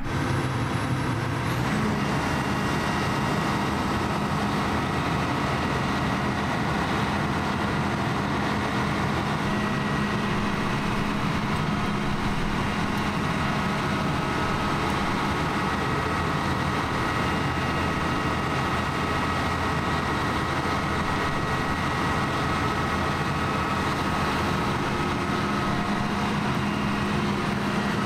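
Large engine running steadily, an even drone with a constant low hum and a faint steady whine above it, unchanged throughout.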